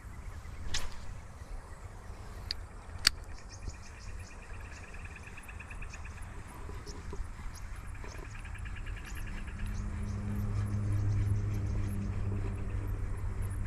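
Insects chirping in rapid pulsed trills, with a few sharp clicks in the first three seconds. A low steady hum builds from about ten seconds in and becomes the loudest sound.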